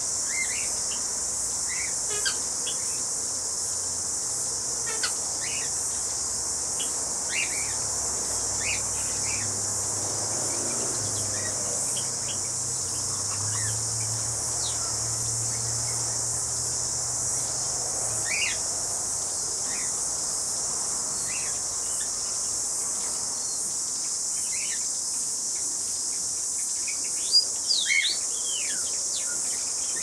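Constant high-pitched insect chorus, with short bird chirps dotted throughout and a brief flurry of louder chirps and whistles near the end.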